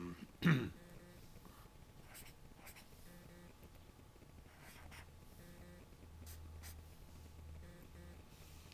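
Pen writing numbers on a paper pad, faint scratchy strokes. About half a second in, a brief low grunt with falling pitch is the loudest sound.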